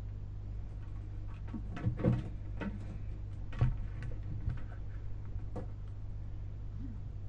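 A faint, steady low drone with a few irregular clicks and knocks: handling noise from someone moving near the recorder during a night-time recording.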